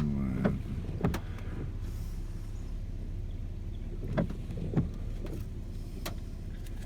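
Low steady hum of a running car heard from inside the cabin, with several sharp ticks, two of them in pairs about half a second apart.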